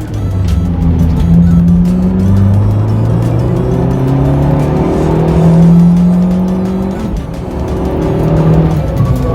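Car engine under hard acceleration, its pitch climbing in each gear and dropping at upshifts about two and seven seconds in, with background music playing over it.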